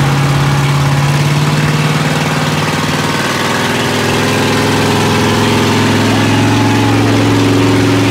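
Big lifted mud truck engine held at steady revs while pulling against another truck in a tug of war. Its pitch drops a little about three seconds in.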